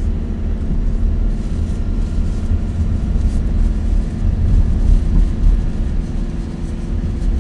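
A campervan's engine and road noise heard from inside the cab while driving: a steady low rumble.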